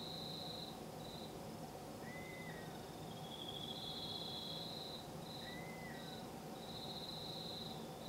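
Insects trilling in long pulsed stretches, stopping and starting, over a steady low background hiss. Twice, about two seconds in and again near six seconds, another animal gives a short single call, lower than the trills.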